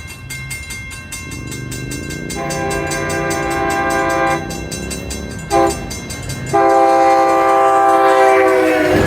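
A train horn sounding as the train approaches: a long blast, a short one, then another long, loud blast. Behind it a mechanical railroad-crossing bell rings rapidly and steadily.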